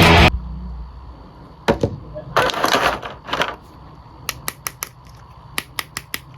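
Scissors snipping plastic toy packaging: quick runs of sharp clicks, four and then five in a row, after a few short rustles of the packaging being handled.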